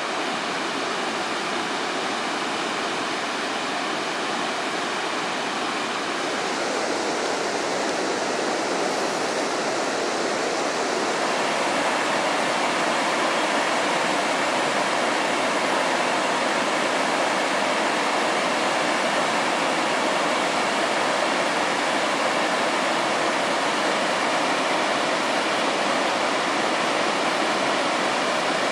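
Steady rush of whitewater rapids pouring over and around boulders in a rocky river, growing slightly louder about a dozen seconds in.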